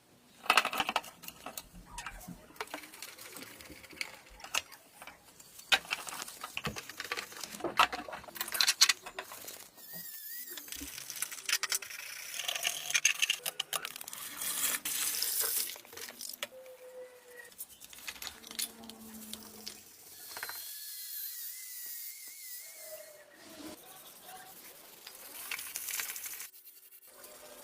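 Hands-on restoration work on a vintage mechanical coin bank: irregular scraping, brushing and sharp clicks of tools and small parts, with a wavering high whine twice, briefly.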